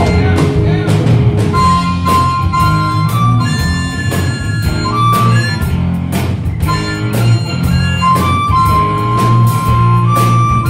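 Live blues band playing an instrumental break: a harmonica plays long held notes over electric guitar, bass guitar and a steady drum beat.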